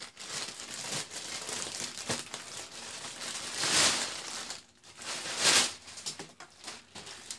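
Clear plastic packaging bag crinkling and rustling as it is pulled off a crossbow's limb assembly, with two louder crinkling surges about four and five and a half seconds in.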